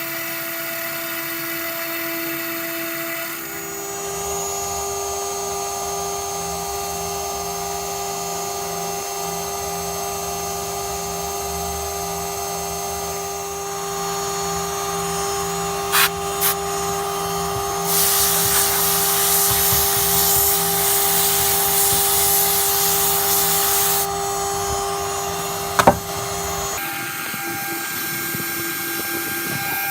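CNC router running: steady whining tones from its motors, which jump to a new pitch a few seconds in and again near the end. There are a couple of sharp clicks and a loud hiss lasting about six seconds past the middle.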